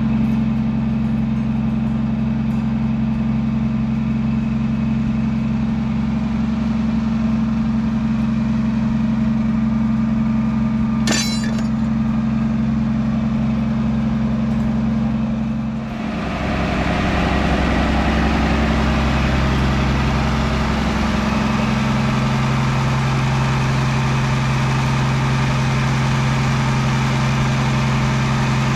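An engine idling steadily with a low, even hum. There is a single sharp click about eleven seconds in. About sixteen seconds in, the sound dips briefly and then carries on with a rougher, noisier note.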